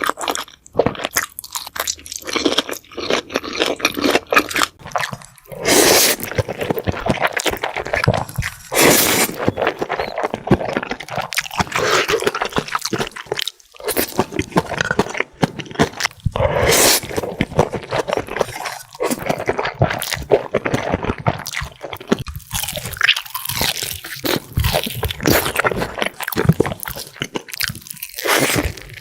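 Close-miked eating sounds: a person crunching through crisp fried chicken and chewing, with repeated loud crackling bites and a few louder bites along the way.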